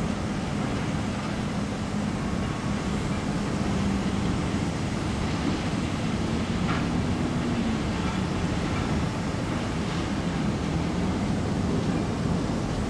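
Distant diesel freight locomotives running with a steady low engine drone, under an even rushing noise.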